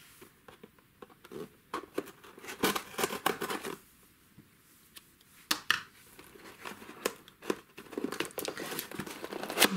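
A taped cardboard mailer being handled and moved: intermittent paper rustling and crinkling with scattered sharp taps, quieter for a stretch in the middle.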